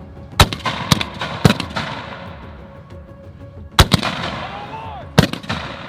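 Gunfire: single sharp reports, three about half a second apart, then after a pause a quick pair and one more near the end, each with a ringing tail. Background music runs underneath.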